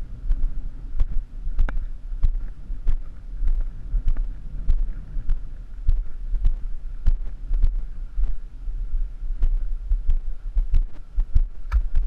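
Steady low rumble with soft, even thumps nearly twice a second, close to the microphone.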